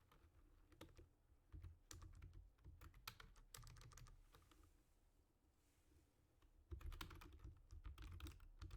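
Faint, irregular clicking and light tapping of glossy trading cards being handled and slid one behind another as a pack is worked through. There is a quieter stretch in the middle, and the clicks grow busier near the end.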